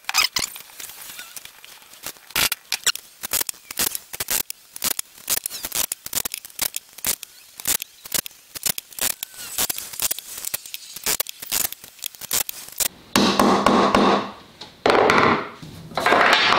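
A quick, irregular run of sharp taps and knocks: a claw hammer tapping glued wooden dowels into holes in a rail. About thirteen seconds in, three longer, louder scraping sounds follow.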